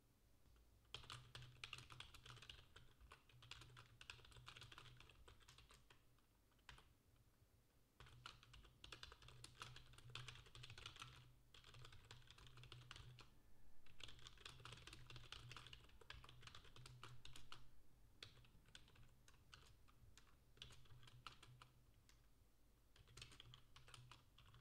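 Faint typing on a computer keyboard: rapid runs of key clicks broken by short pauses.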